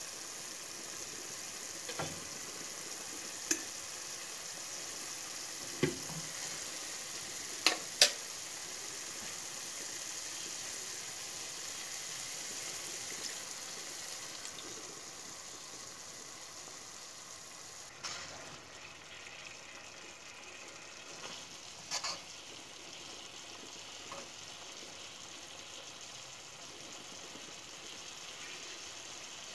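Chicken in tomato sauce sizzling steadily in a non-stick wok, with a scattering of sharp knocks of a cooking utensil against the pan, two of them close together about eight seconds in.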